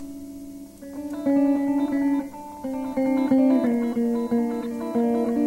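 Electric guitars playing live film-score music: a held chord, then from about a second in a line of separately picked notes stepping from one pitch to the next.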